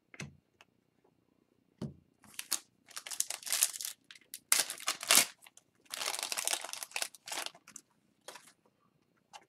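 Foil wrapper of an O-Pee-Chee Platinum hockey card pack being torn open and crinkled by hand, in irregular bursts from about two seconds in.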